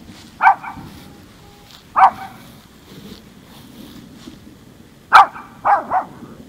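Small Maltese dog barking: single barks about half a second and two seconds in, then a quick run of three near the end. It is barking at thunder.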